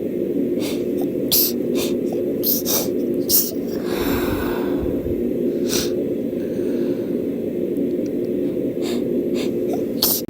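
A person with a head cold sniffing hard through a congested nose, one long breathy snort about four seconds in. A steady low hum runs underneath, with scattered small clicks.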